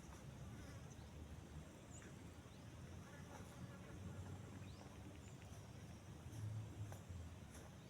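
Faint outdoor background: a steady low rumble with a few short, faint high chirps and ticks scattered through it.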